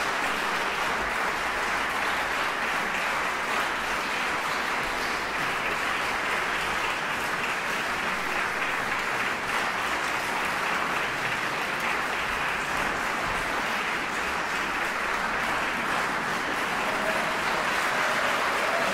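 Concert audience applauding steadily, a sustained wash of many hands clapping.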